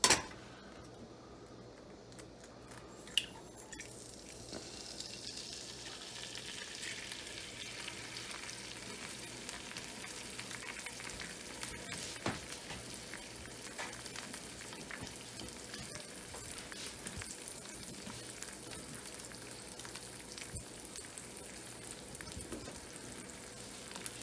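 An egg frying in hot bacon grease in a cast iron skillet. After a click about three seconds in, a steady sizzle swells up and holds.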